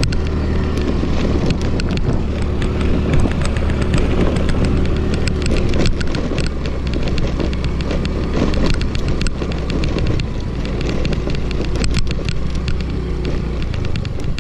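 Small scooter engine running steadily while riding over rough sand, with frequent sharp rattles and clicks from the bike as it bumps along; the engine eases off near the end.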